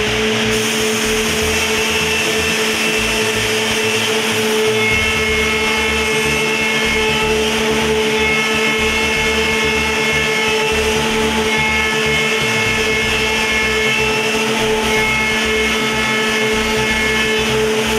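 Multi-spindle CNC woodworking machining center running: a steady high-pitched spindle whine at full speed over a dense machining noise. Higher whining tones come and go every few seconds as the tools work the wood.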